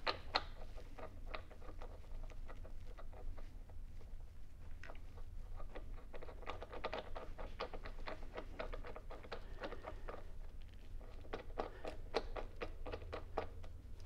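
Light metallic clicking and ticking as a crank arm puller is threaded by hand into a square-taper bicycle crank arm, with scattered ticks at first and then quick runs of ticks.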